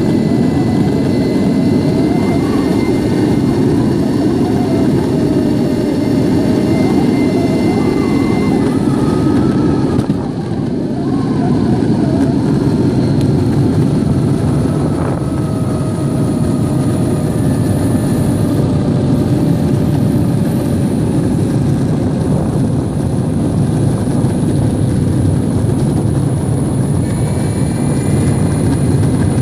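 Metroboard electric skateboard rolling fast over coarse asphalt: a steady, loud rolling noise of the wheels on the road surface, with the electric drive's faint whine sliding slowly in pitch above it.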